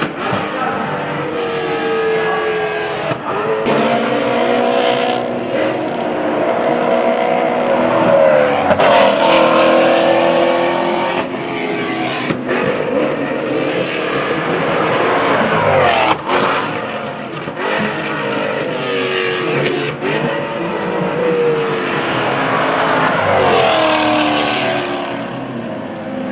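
Several Maserati GranTurismo MC Trofeo race cars passing at racing speed, their V8 engines revving up and dropping in pitch through gear changes, with more than one car heard at once.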